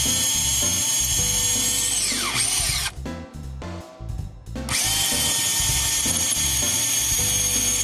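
Makita 18-volt cordless compact drill driver running at speed, boring pilot holes in a 2x4. It winds down about two and a half seconds in, stops for a second and a half, then spins up again and runs steadily to the end.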